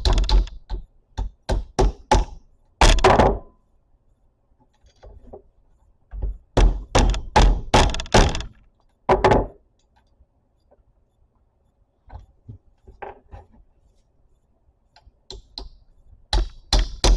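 Light tapping that drives a 1/4-inch bolt into a 3D-printed plastic push-fit knob. The taps come in short runs, loudest in the first few seconds and again in a quick cluster about six to nine seconds in, and then grow fainter and sparser as the bolt seats.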